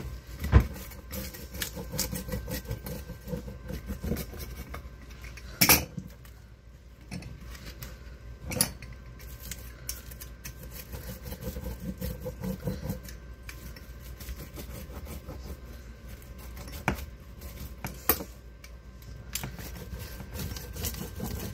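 Pizza cutter wheel rolling and scraping through toasted tortilla quesadillas on a wooden cutting board, with a handful of sharp knocks as the cutter and board are handled.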